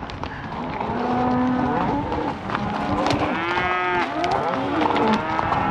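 A herd of cows and calves mooing and bawling, several calls of different pitches overlapping one another, with a higher-pitched bawl a little past the middle.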